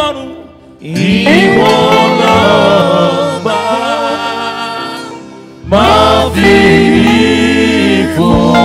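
Live gospel praise music: male voices singing with a wavering, ornamented melody over a band of bass guitar, keyboards and drums. The music thins out twice, briefly, before the voices come back in on a new phrase.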